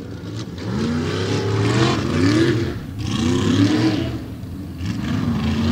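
Engines of two modified tough-truck race trucks revving hard and easing off again and again as they race a dirt obstacle course. The pitch rises and falls several times.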